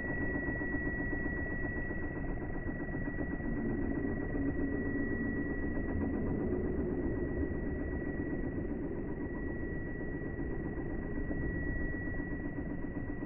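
A small electric motor running steadily, a fast buzz with a thin, steady high whine on top.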